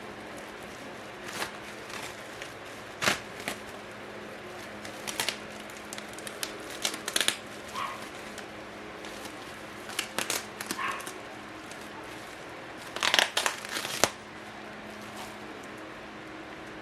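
Packaging being unwrapped and handled: plastic crinkling in short rustles, with scattered taps and clicks. The loudest flurry comes about 13 seconds in.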